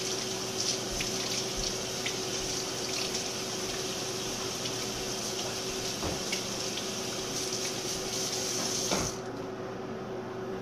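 Water running from a tap into a sink, steady, then shut off suddenly about nine seconds in.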